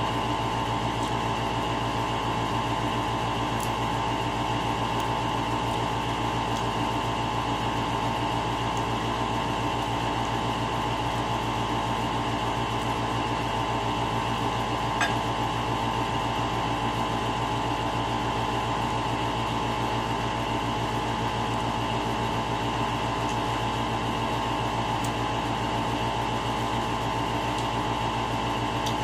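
A steady mechanical hum that holds unchanged throughout, with a single light click about halfway through.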